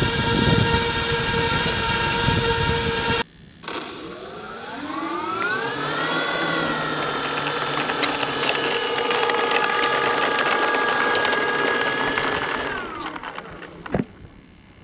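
Electric motors and propellers of a four-propeller RC HC-130J model airplane: a steady motor whine that cuts off about three seconds in, then a whine that rises as the motors spin up, holds steady for several seconds and falls away as they spin down near the end. A single click follows.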